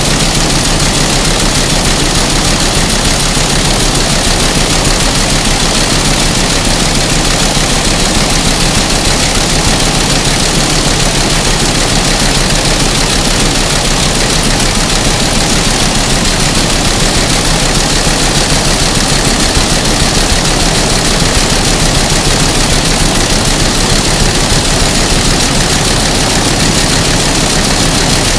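Lässer MD5 schiffli embroidery machine, driven by a retrofitted servo system, stitching at 400 rpm: a loud, steady mechanical clatter of its needle row.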